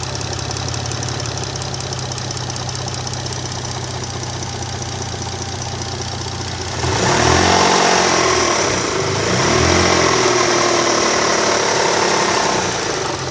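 Mitsubishi 6A13TT twin-turbo V6 idling cold with a rhythmic knock, which the owner places in the valley between the cylinder heads and which goes away once the engine is fully warm. About seven seconds in, it is revved up twice.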